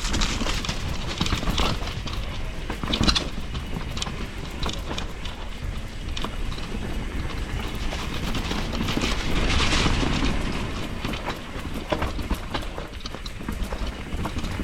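Enduro mountain bike riding down a dirt trail: knobby tyres rolling and the chain and frame rattling over bumps, with a sharp clatter about three seconds in.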